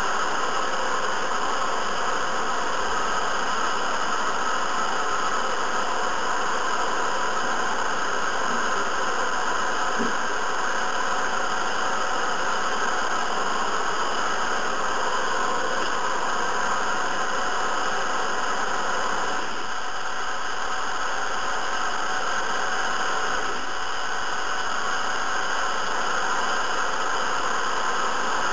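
Hair dryer running steadily, an even rush of blown air and motor noise that dips slightly for a few seconds about two-thirds of the way through.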